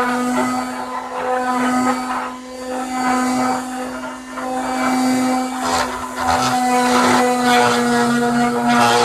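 Electric sander running on a length of handmade wooden trim, a steady motor hum that swells and eases every second or two as it is worked along the wood.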